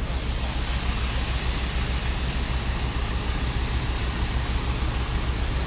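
Heavy farm machinery running steadily: a low, evenly pulsing engine drone under a constant rushing hiss.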